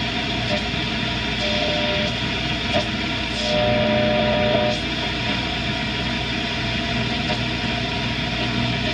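Vintage Norelco Bi-Ampli tube radio tuned to shortwave, playing a steady hiss of static and band noise from its speaker. A few thin whistling tones come and go through it, the strongest about three and a half seconds in.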